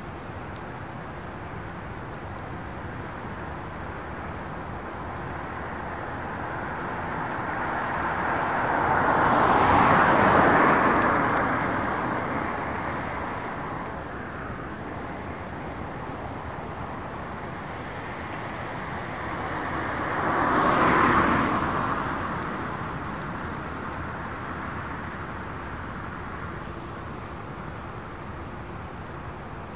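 Two cars passing close by, one about ten seconds in and another around twenty-one seconds in, each swelling up and fading away over a steady background rush.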